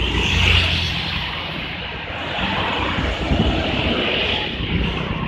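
Bus passing, engine and road noise: a low rumble that drops off about a second in, over a steady hiss.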